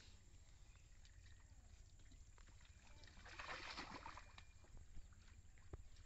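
Faint sloshing and splashing of shallow muddy water as a clay pot is worked through it by hand, loudest in a short rush about three to four seconds in, over a low steady rumble.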